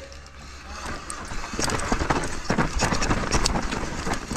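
Downhill mountain bike rattling and clattering over rough trail ground, with quick irregular knocks from the tyres and frame; it grows louder and busier after about a second and a half.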